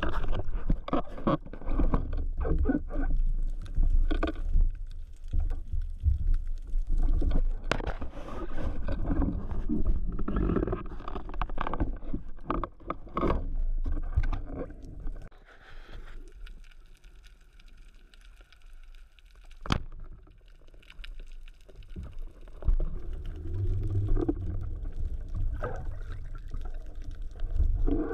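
Water sloshing and gurgling around a GoPro on a speargun at the surface and underwater, with a low rumble and irregular knocks and scrapes as the gun is handled. It goes quieter past the middle, with one sharp click, then the sloshing and knocking pick up again.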